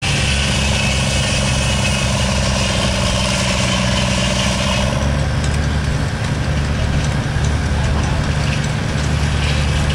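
Allis-Chalmers tractor engine running steadily while belt-driving a sawmill from its pulley. About halfway through, its note drops slightly and a high whine fades out, coming back near the end.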